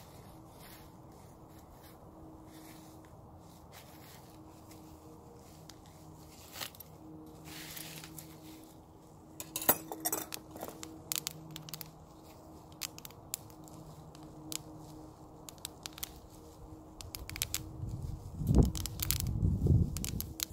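Bubble wrap being squeezed and popped by hand: scattered sharp pops, coming in quick clusters about halfway through and again near the end, with the plastic crinkling as it is handled.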